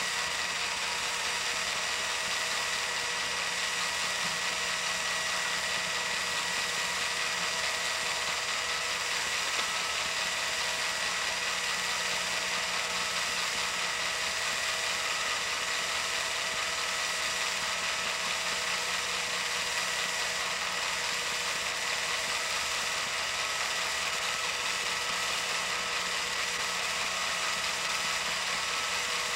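Film projector running: a steady mechanical whirr with a fast, fine clatter from its film-advance mechanism.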